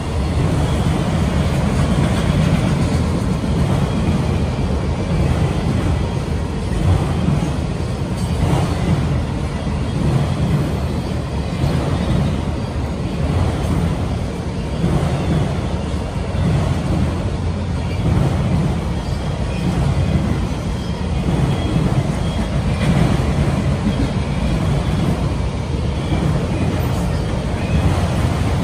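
Freight train of autorack cars rolling steadily past: a continuous deep rumble of steel wheels on the rails.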